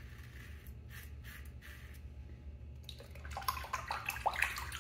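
A few faint scrapes of a double-edge safety razor cutting lathered stubble, then from about three seconds in, water splashing and dripping in the sink as the razor is rinsed.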